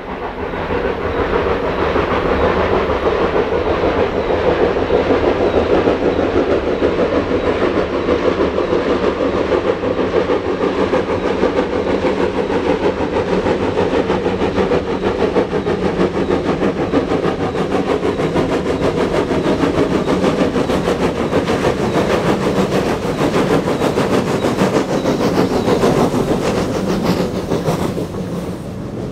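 Steam locomotive hauling a train on the 1 in 49 gradient, a steady loud run of engine sound and wheels on rail that eases off near the end.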